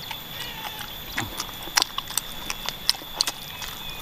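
Mouth noises of eating chicken feet, bones and all: irregular chewing and crunching with scattered sharp clicks.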